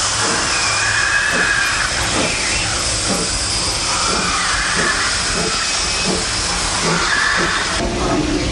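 Vulcan steam locomotive blowing steam from its open cylinder cocks: a loud, steady hiss with a faint, regular beat under it about every half second as the engine works slowly. Near the end the hiss drops away to a lower running sound heard from the cab.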